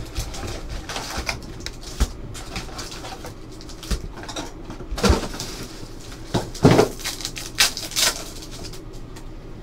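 Panini Select basketball card box and foil packs being handled: a light rustle broken by a few sharp taps and crinkles as the packs are taken out and set down, then a foil pack crinkling as it is torn open near the end.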